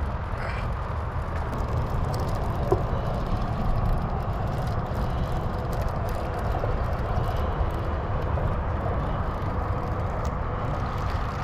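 Steady outdoor background noise, mostly a low rumble with a softer hiss above it, with no single event standing out.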